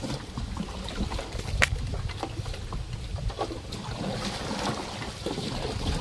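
Small paddled boat moving through water, with water sloshing and scattered knocks on the hull, one sharp knock about a second and a half in.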